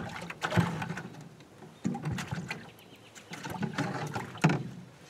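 Plastic bucket lid being handled and pried off, with irregular knocks, clatters and scrapes against the bucket and the aluminium jon boat's hull.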